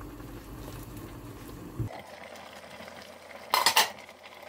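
A short clatter of cookware about three and a half seconds in, over a faint steady background.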